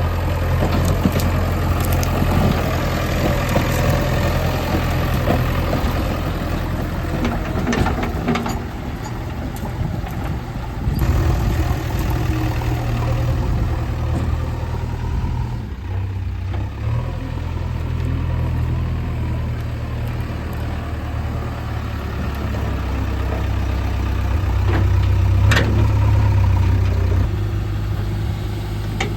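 Heavy diesel machinery engine running with a low, steady throb; its note shifts a few times, and a few sharp knocks sound over it.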